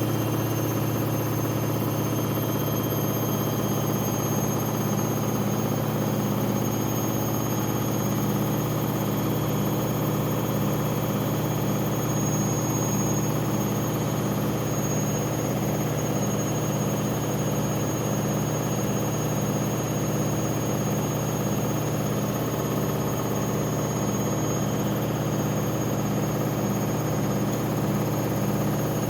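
Washing machine on its spin cycle: a steady hum from the spinning drum and motor, with a high, thin whine held steady above it.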